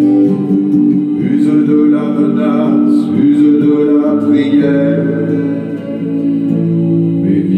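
Guitar playing under a man's voice singing long held notes without clear words.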